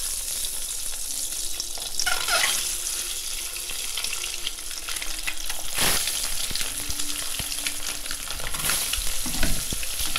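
Boiled eggs frying in hot mustard oil in a kadai: a steady sizzle with dense crackling, flaring up briefly a few times as more eggs go into the oil.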